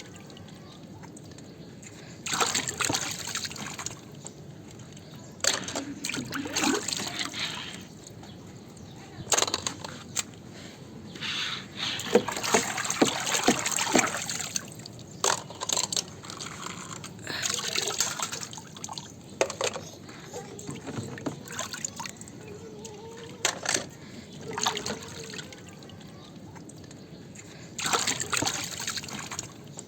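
Water splashing and sloshing in irregular bursts while plastic toy vehicles are washed by hand, with sharp clicks and knocks of the plastic toys. The longest, loudest stretch of splashing comes about twelve seconds in.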